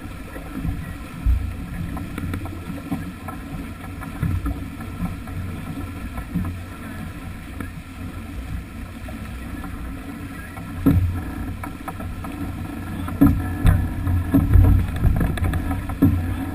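Water rushing and splashing along the hull of a sailing yacht heeled over under way, mixed with wind buffeting the microphone. The rumble swells in louder gusts in the second half.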